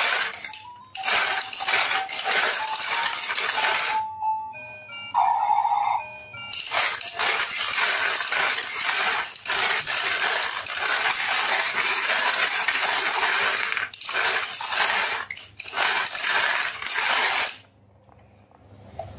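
Marbles rolling and clattering down a marble run in two long stretches, with a short tinkling melody of single notes between them.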